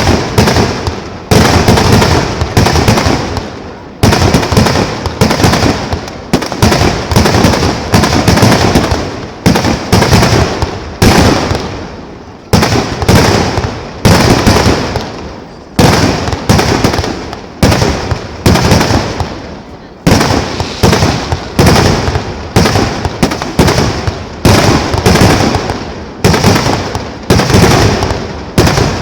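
Kerala temple-festival fireworks (vedikettu): a dense, unbroken barrage of loud explosions, with a fresh cluster of bangs about every second, each dying away before the next.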